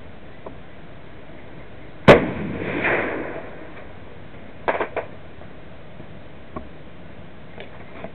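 A single shot from a 6.5×50mm Type 38 Arisaka rifle about two seconds in, ringing off for about a second after the crack. A couple of faint, short clicks follow a few seconds later.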